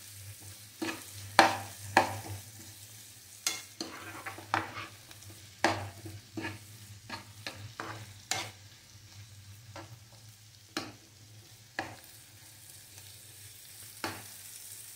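A spatula stirring bell pepper pieces in a non-stick frying pan, making irregular scrapes and taps against the pan a dozen or so times. Underneath are a faint sizzle from the frying and a low steady hum.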